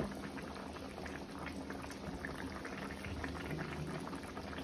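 Thick oxtail stew gravy simmering in a pan, bubbling with many small pops, and a single click right at the start.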